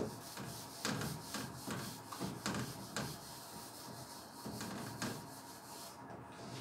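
Whiteboard eraser rubbing across a whiteboard in repeated quick wiping strokes, wiping off marker writing.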